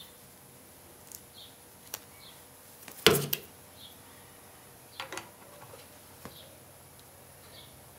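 Metal clinks and knocks from a steel bearing being handled and slid onto a transmission's splined input shaft against the case. The loudest knock comes about three seconds in, followed by a lighter one, and a few smaller clicks come around five seconds in. Faint short high chirps repeat about once a second in the background.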